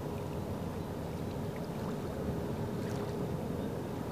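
Small waves lapping on a sandy riverbank, a steady low wash with a faint steady hum underneath that stops about three seconds in.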